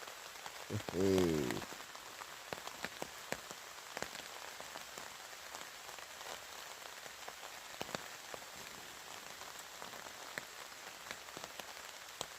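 Rain falling on a tarp overhead: a steady hiss with many sharp single drop-ticks scattered through it. A man's voice makes a short sound about a second in.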